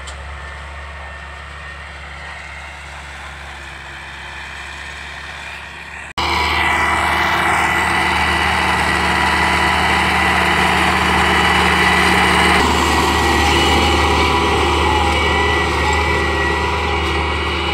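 MTZ-82 tractor's four-cylinder diesel engine running steadily under load while pulling a field cultivator. About six seconds in the sound cuts to a much louder, closer engine.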